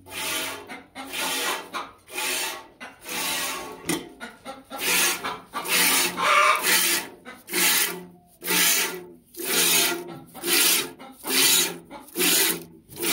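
A cow being milked by hand: jets of milk hissing into a metal pail in an even rhythm, about three squirts every two seconds.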